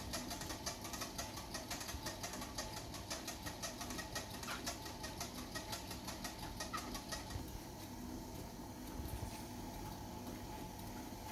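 Xiaomi WalkingPad C1 walking treadmill running with a rapid, rhythmic squeak several times a second that fades about seven seconds in. It is a start-up noise that appears after the treadmill has been folded or left unused for hours; the owner wonders whether it needs lubricant.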